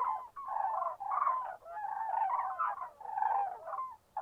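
A flock of common cranes calling, many overlapping trumpeting calls in bouts broken by short pauses.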